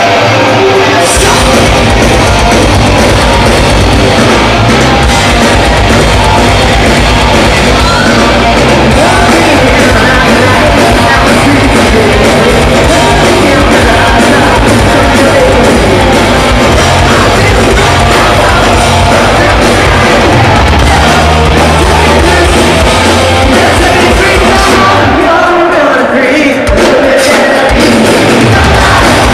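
Hard rock band playing live at full volume: distorted electric guitars, bass and drums with shouted lead vocals. The bass and drums come in hard about a second in, and the low end drops away briefly a few seconds before the end before the full band returns.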